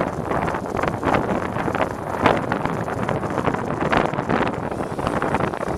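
Wind buffeting a camera microphone on a moving bicycle: a steady rush with irregular gusts.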